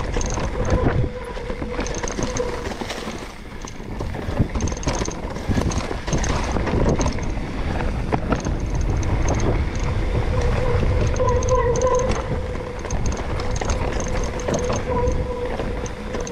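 Mountain bike rolling fast down a dirt trail: tyres on dirt and dry leaves, with the bike rattling and knocking over bumps and a heavy rumble of wind on the microphone. A faint whine comes and goes through it.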